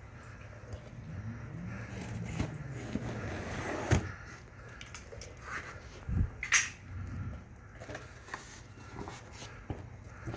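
Pressure washer's packaging being opened and handled: scraping and rustling with scattered clicks and knocks, and a sharp thump about four seconds in and another about six seconds in.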